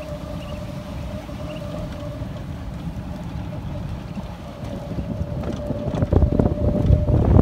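Wind buffeting the microphone of a moving golf cart, over a thin steady whine from the cart's motor. The buffeting grows louder and gustier about six seconds in.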